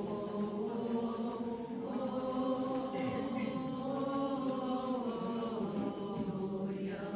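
Church chant sung by a group of voices, a slow line of long held notes.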